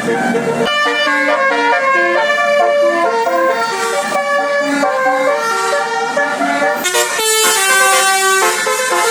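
An Indonesian bus's 'telolet basuri' multi-tone horn playing a quick melody, its notes changing several times a second, with a short break about seven seconds in before it plays on.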